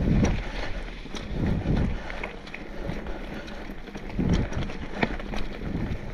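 Mountain bike rolling along a dirt singletrack: tyre noise and wind buffeting the microphone in gusts, with sharp clicks and rattles from the bike going over the rough ground.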